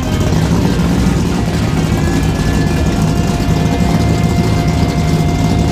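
Chevrolet 502 cubic-inch big-block V8 in a Malibu race car, running steadily.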